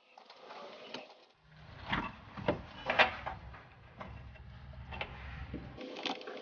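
Scattered metal knocks and clanks from hands-on work on a car's rear suspension, the loudest about three seconds in, with a low steady hum underneath for a few seconds in the middle.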